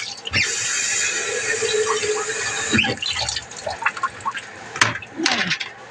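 Kitchen tap running water into the sink for about two and a half seconds, then shut off, followed by a few sharp clinks and knocks of dishes being handled.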